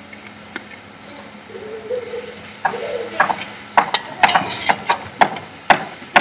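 Slotted metal spatula scraping and knocking against an aluminium karahi as onions and crushed garlic fry in hot oil, over a low sizzle. The spatula strokes start about two and a half seconds in and come a few times a second.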